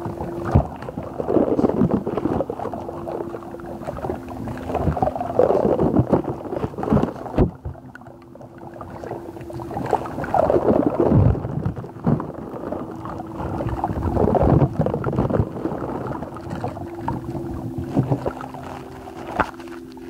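Wet slime squished and squelched by hand close to the microphone, in irregular strokes, with a brief lull about eight seconds in.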